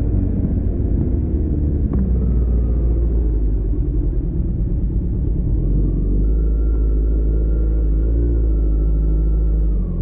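Kawasaki Z900 inline-four engine and exhaust rumbling at low revs as the bike rolls slowly through traffic; the revs fall away at the start as the throttle closes, then it runs low and steady. A brief click about two seconds in.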